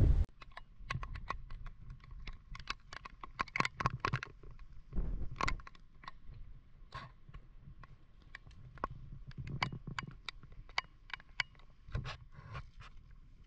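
An irregular series of sharp clicks and knocks, with heavier thuds about five seconds in and again near the end.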